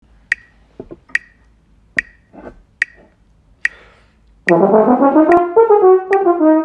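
A metronome clicks steadily at about 72 beats a minute. About four and a half seconds in, a French horn starts playing a line of changing notes over the clicks.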